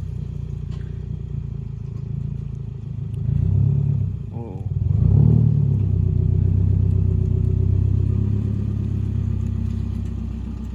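Subaru car engine with a changed exhaust, running with a deep steady drone and revved up twice, about a third and halfway through, then settling back.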